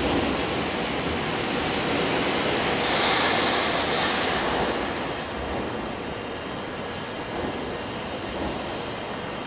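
Nagano Electric Railway 8500-series electric train running on the rails, with a brief high whine about two seconds in. The sound slowly fades as the train draws away.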